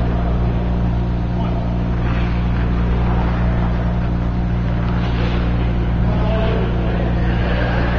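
Steady low mechanical hum filling an ice arena, unchanging throughout, with faint distant voices over it.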